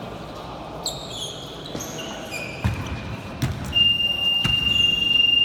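Basketball game on an indoor court: sneakers squeak on the floor and a basketball bounces a few times. Then a long, steady high-pitched tone starts and is the loudest sound.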